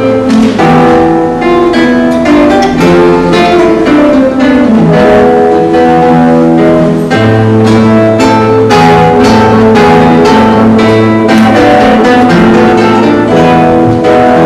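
Two classical nylon-string guitars playing an instrumental passage together, a quick, continuous flow of fingerpicked notes over held bass notes.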